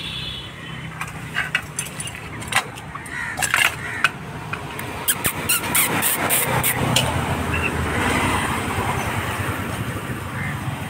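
Scattered sharp clicks, knocks and rustling from live chickens being handled in a bamboo basket, over a steady low engine hum from traffic.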